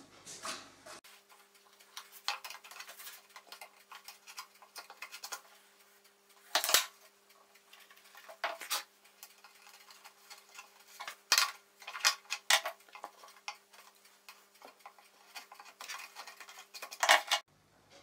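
Light, irregular clicks and taps of small wooden pieces being handled and pressed into place by hand: a split-off chip being fitted back into a pine board, with a few sharper knocks among them. A faint steady hum lies underneath.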